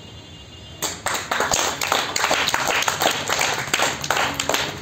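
A small group of people clapping, starting about a second in and going on as dense, irregular hand claps.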